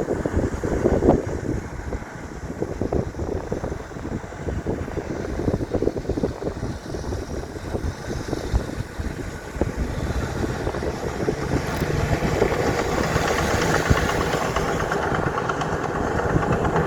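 Diesel engine of heavy earthmoving machinery working, with irregular low rumbling and clatter at first. From about two-thirds of the way in it gets steadily louder, with a steady engine note.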